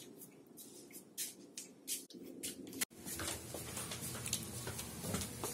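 Scattered light clicks, taps and shuffling of someone moving about a room, picked up on a handheld phone. The sound breaks off sharply about three seconds in and goes on as a denser rustle.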